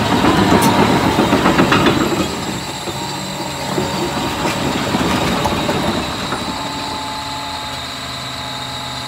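John Deere 850K crawler dozer travelling on gravel, its steel tracks clanking and rattling, loudest in the first two seconds. The diesel engine then settles into a steady hum from about six and a half seconds in.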